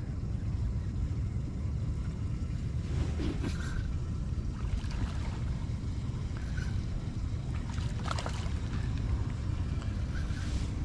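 Steady low wind rumble on the microphone over open water beside a small boat, with a few faint brief sounds in the middle.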